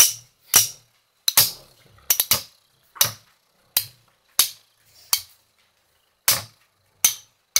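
Two metal-wheel Beyblade spinning tops colliding in a plastic stadium: about a dozen sharp metallic clacks at uneven intervals, with three in quick succession about two seconds in.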